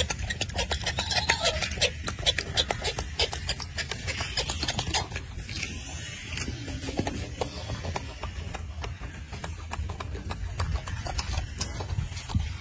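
Golden snub-nosed monkey chewing orange segments close up: a quick run of wet smacking clicks, densest in the first half, over a low steady rumble.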